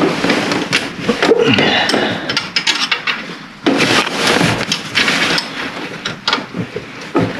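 Hand tools working metal: a spanner clinking and scraping as alternator mounting bolts are loosened. The sound comes in irregular bursts of rattling and scraping with sharp clicks, the loudest starting suddenly a few seconds in.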